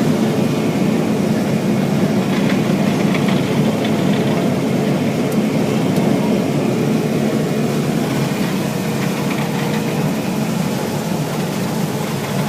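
Combine harvester's engine and threshing machinery running steadily while combining soybeans, a constant loud drone heard from inside the cab.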